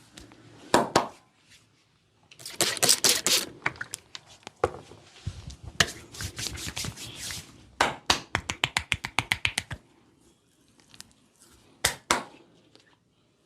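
Hands striking the body during a massage: sharp smacks and taps, including a fast even run of about five strikes a second, typical of chopping or tapping massage strokes.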